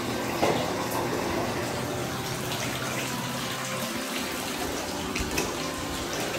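Water pouring from a bath tap into a filling bathtub, a steady rushing splash, with a couple of light knocks.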